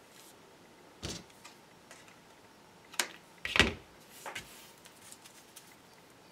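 Hands handling a cardstock panel and a roll of adhesive on a tabletop: four brief knocks and rustles, the loudest about three and a half seconds in.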